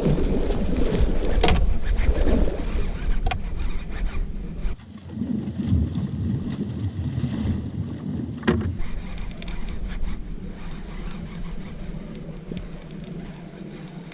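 Fishing boat under way on the water, its running noise mixed with wind rushing on the microphone. Sharp clicks and bumps come through, and the sound changes abruptly twice.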